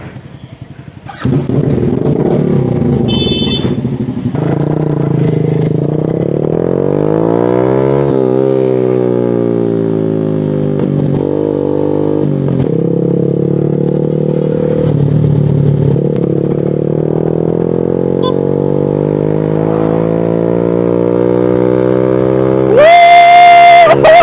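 2023 Suzuki Smash R's single-cylinder four-stroke engine running through an SC Project aftermarket exhaust, coming in loud about a second in and revving up through the gears, its pitch rising and then dropping back at each shift. Near the end a loud high-pitched tone cuts in over it.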